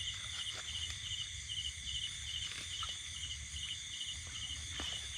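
Night insects calling: a steady high chirping in short groups of about three quick pulses, repeating about two and a half times a second, over a constant high insect chorus, with a few faint ticks.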